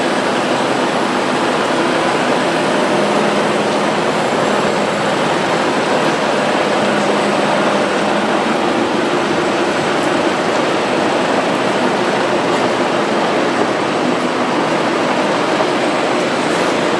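Steady city street traffic noise, with a double-decker bus running close by; an even, unbroken din.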